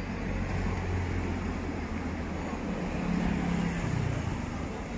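Low, steady engine rumble, with a stronger low tone held for about a second starting around three seconds in.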